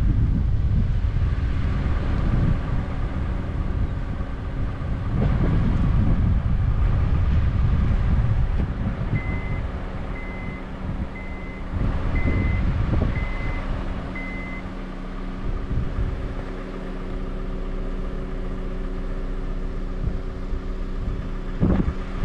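Gusty wind buffeting the microphone over a steady low hum. In the middle come six short high beeps about a second apart.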